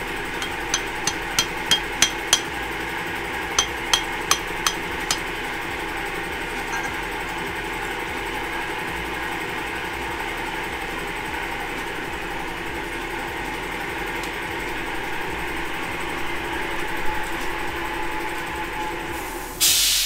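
Hammer tapping on metal: ten quick ringing strikes in two runs of five in the first five seconds, over a steady hum. A short, loud hiss bursts in just before the end.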